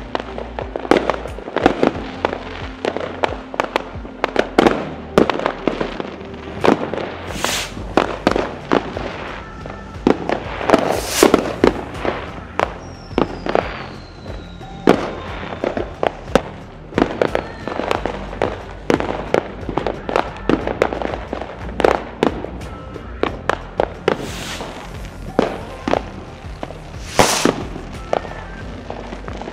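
New Year's Eve fireworks going off all around: a dense, irregular run of sharp bangs and crackles from rockets and firecrackers, near and far. About halfway through, a thin falling whistle rises above the bangs.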